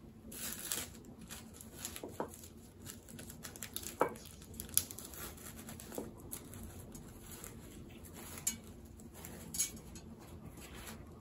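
Hands unwrapping a mailed package: rustling and crinkling of packing material, broken by scattered sharp clicks and taps.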